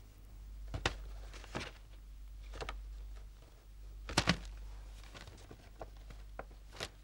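Sheets of paper rustling and being handled, with a few short sharp taps, the loudest a close pair about four seconds in, over a faint low hum.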